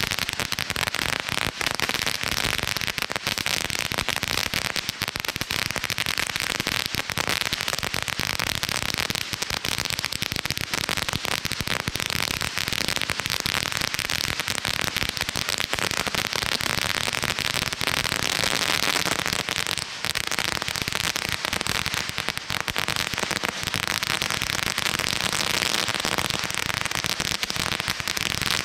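A 16,000-firecracker bandolier burning through, its firecrackers going off in a dense, unbroken rapid crackle.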